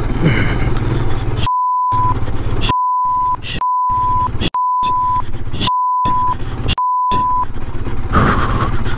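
Six censor bleeps, each a steady 1 kHz tone about half a second long with the audio cut out just before it, laid over swearing. Between and around them the Royal Enfield Scram 411's single-cylinder engine runs steadily as the bike is ridden.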